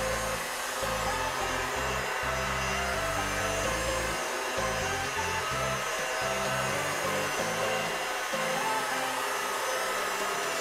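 Electric rotary polisher running steadily against car window glass, polishing scratches out, with background music underneath.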